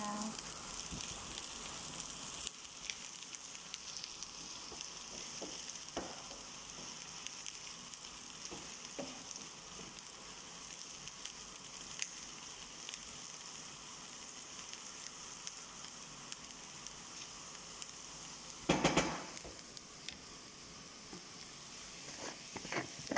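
Sliced onions sizzling steadily in hot oil in a nonstick frying pan, with a wooden spoon stirring them and scattered small clicks. A brief, louder burst of noise comes about 19 seconds in.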